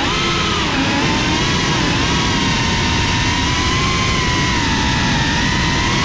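FPV drone's brushless motors and propellers whining at a fairly steady throttle, recorded by the GoPro riding on the drone, over a dense low rushing noise.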